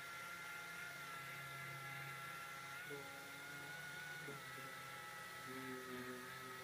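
Orbital sander with a red sanding disc running steadily as it sands body filler on a car's wheel-arch panel. It gives a steady high whine that dips slightly in pitch about four seconds in.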